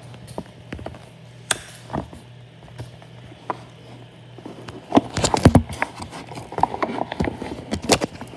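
Scattered clicks and knocks of objects being handled, with a denser run of them about five seconds in.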